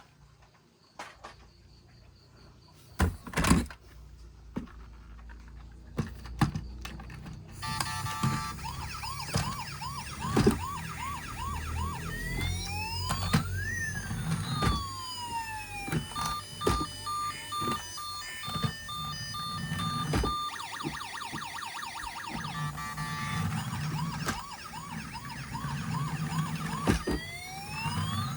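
Electronic siren of a battery-powered toy emergency vehicle cycling through its patterns: a fast warble, long rising-and-falling wails, and a run of quick beeps, then the warble again. Before it, a few seconds of plastic clicks and knocks as the toy is handled.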